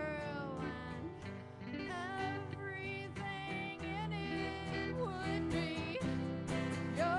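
Live band playing a country-style song: a sung melody over acoustic guitar, electric guitars and drums.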